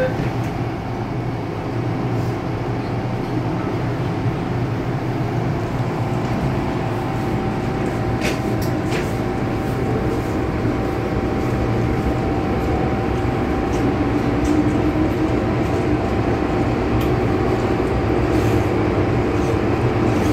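Hong Kong MTR M-Train electric multiple unit heard from inside the car as it pulls out of the station and gathers speed. The running noise is steady and builds slowly, a motor whine joins about six seconds in, and there are two sharp clicks around eight and nine seconds in.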